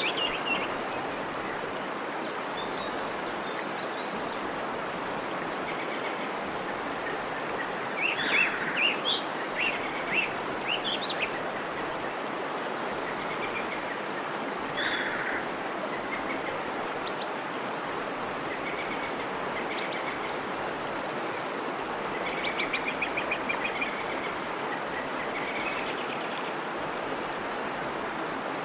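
Steady rush of a waterfall with birds singing over it, from a relaxation ambience recording. The birds chirp in clusters about eight to eleven seconds in and again around fifteen seconds, with a fast trill a little past twenty-two seconds.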